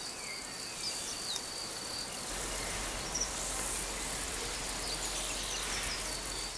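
Natural ambience of insects trilling steadily, with a few short bird chirps. About two seconds in, a broader, even hiss with a low drone underneath takes over.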